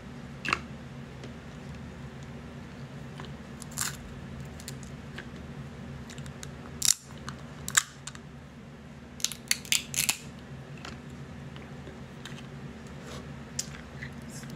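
Crab leg shells cracking and snapping as they are broken apart by hand and bitten: a dozen or so sharp cracks scattered through, several in quick succession about nine to ten seconds in. A steady low hum runs underneath.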